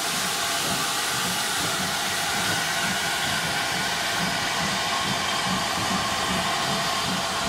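GWR Saint class 4-6-0 steam locomotive No. 2999 moving slowly past, with a steady hiss of steam over a soft low beat about twice a second.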